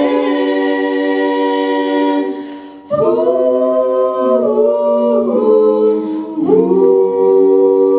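Mixed four-voice a cappella group, two male and two female singers, singing held chords in close harmony. The first chord is held and fades out, then after a short break a new phrase starts with chords that shift every second or so and are held again.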